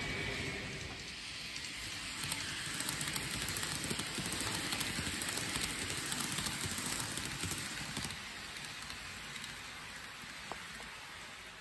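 N-gauge model train running on layout track: a steady rattle of many small ticks from the wheels on the rails, fading toward the end.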